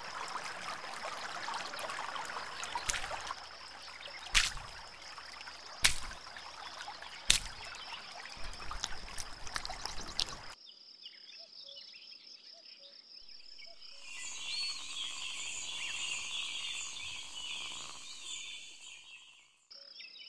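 Nature ambience with a steady high insect trill throughout. For the first half, water sloshes and splashes, with three sharp hits about a second and a half apart. After that it drops quieter, and birds chirp for a few seconds near the end.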